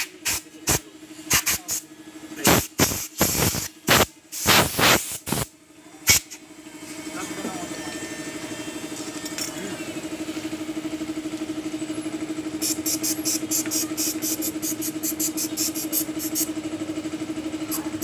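Aerosol spray cleaner fired in about a dozen short bursts over the first six seconds while CVT parts are cleaned. A steady low hum runs underneath, and a fast regular ticking comes in about two-thirds of the way through.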